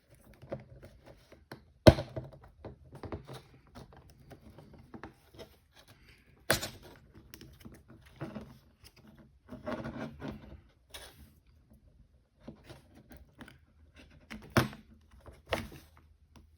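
Plastic pry tools clicking, tapping and scraping against an iPhone SE as they are worked around its edge to pry it open, in short irregular clicks with a few sharper knocks.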